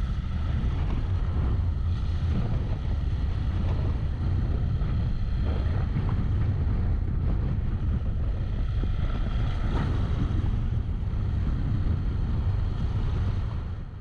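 Heavy wind rumble on the microphone of a camera on a moving motorcycle, a steady low roar with fainter engine noise beneath. It cuts off suddenly at the very end.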